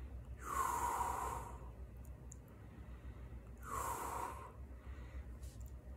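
A person breathing heavily close to the microphone: two long breaths, each about a second, roughly three seconds apart.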